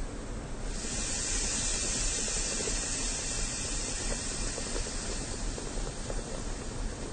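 A train at a station platform lets off a long hiss of released pressure. It starts suddenly about a second in and slowly fades, over a steady low rumble of platform ambience.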